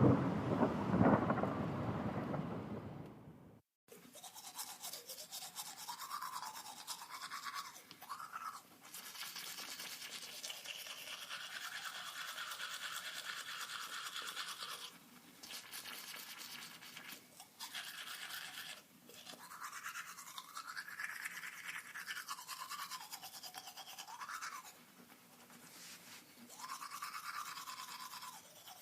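A low rumble dying away over the first few seconds, then a rapid electric buzz, like a small motor, whose pitch swoops up and down several times, with a few short breaks.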